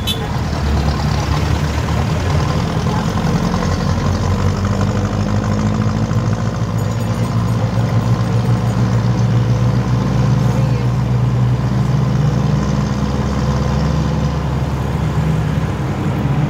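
Jeepney's Mitsubishi 4D30 four-cylinder diesel engine running on the move, its pitch drifting up and down a little as the revs change.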